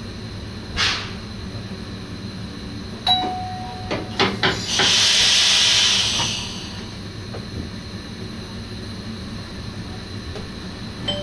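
Cab of an NS SGM Sprinter train under the steady running noise of the train: a click and a short held tone about three seconds in, a few sharp clicks, then a loud hiss of compressed air lasting about a second and a half.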